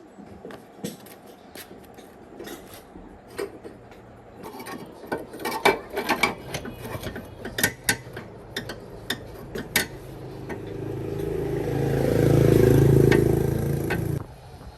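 Metal clinks and knocks of hand tools working on metal parts, then an engine that grows louder from about ten seconds in and cuts off suddenly near the end.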